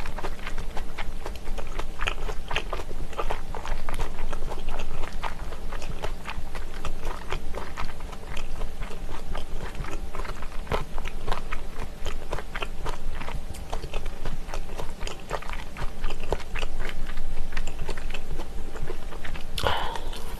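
Close-miked chewing of a mouthful of spicy boneless chicken-feet pressed meat (dakbal pyeonyuk) with cabbage, as many small irregular clicks and crunches. A brief louder sound comes near the end.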